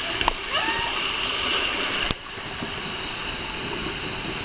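Steady rushing hiss of water running down a water slide's entry tube. It drops suddenly to a quieter, even hiss about two seconds in.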